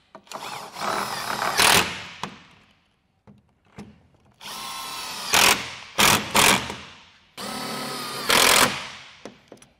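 Cordless drill driving screws through a plastic mounting bracket into the wall, in three runs of a steady motor whine, each ending in a brief louder burst.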